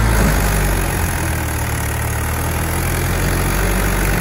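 Mahindra 575 DI tractor's four-cylinder diesel engine running steadily at low speed under load, pulling a heavily laden sugarcane trailer forward.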